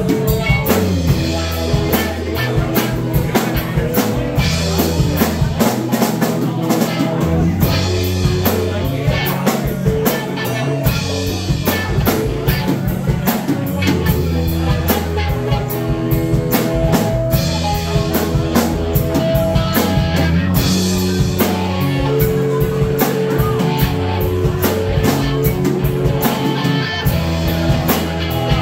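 Live rock band playing: electric bass, electric guitar and a drum kit, with a steady drum beat driving the song.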